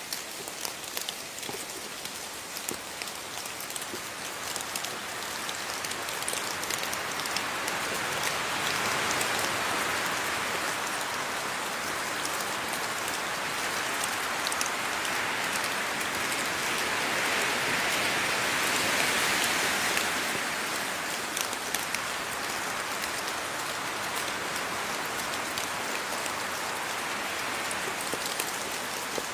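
Steady rain falling, with many separate drops ticking through it. The rain grows heavier from about six seconds in and eases off again after about twenty seconds.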